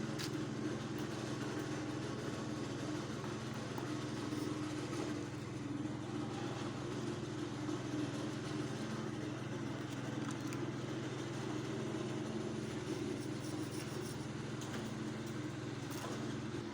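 A small engine running steadily at an even speed, with a few faint clicks or knocks over it.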